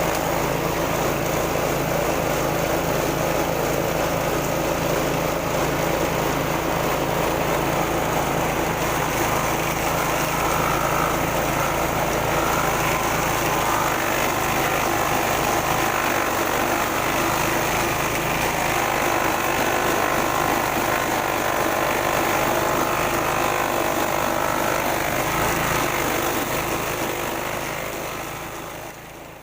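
Grass chopper machine running steadily with a continuous mechanical rattle, fading out near the end.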